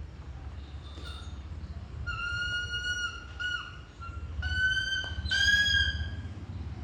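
Eagle calling: a run of four or five high, drawn-out whistled calls, some sliding slightly, with the last one the loudest.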